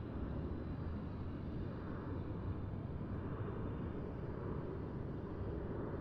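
Distant highway traffic: a steady low rumble of tyres and engines, with faint swells as vehicles pass about two and three seconds in.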